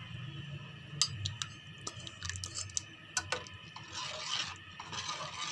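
Perforated metal spoon stirring ground rice into hot milk in a steel pot, with a few sharp clicks of the spoon against the pot and soft liquid swishing. A low steady hum runs underneath.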